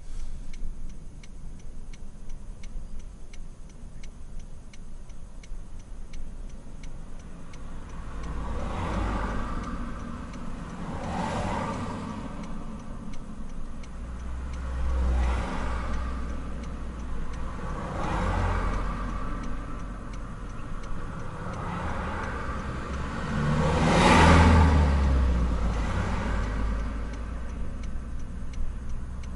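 A car's turn-signal indicator ticking steadily inside the cabin of a car waiting at a light, while other vehicles pass close by in several swells of tyre and engine noise; the loudest pass comes about three-quarters of the way through.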